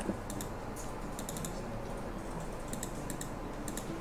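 Scattered light clicks of a computer mouse and keyboard, irregular and a few per second, over a faint steady low hum.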